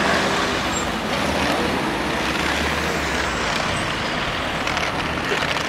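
Steady road traffic noise from cars driving past, one passing close by.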